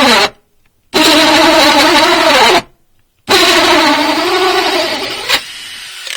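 Cordless drill driving a 3.5-inch hole saw into wood, run in bursts: its whine cuts off just after the start, restarts about a second in, stops again, and restarts a little after three seconds. The pitch sags as the saw bites, and the last run fades toward the end with a sharp click.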